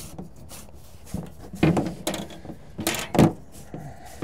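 Clunks and knocks of a molded battery-box cover on a truck frame being pried open by hand: its knob latch and lid rattle, with a few sharp knocks in the second half.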